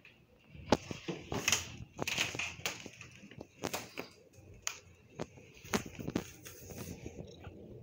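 Irregular scuffs, rustles and sharp clicks from a black cat playing on carpet, mixed with phone handling noise.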